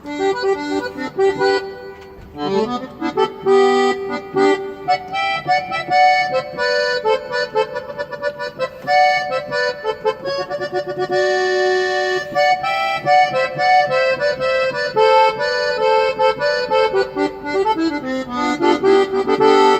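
Keyboard sample of a norteño accordion playing a melody over held chords.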